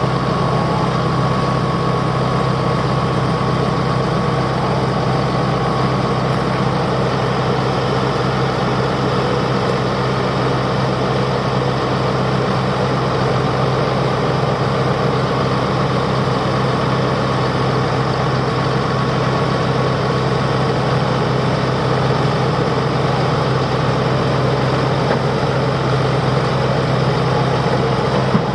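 Tractor engine idling steadily, an even low drone that neither rises nor falls.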